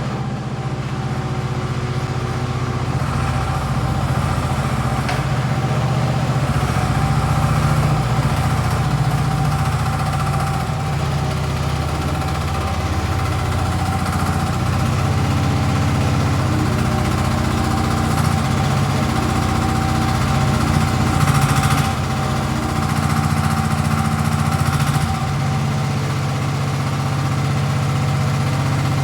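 Mini excavator's Koop engine running steadily at idle, with a short surge in level about three-quarters of the way through.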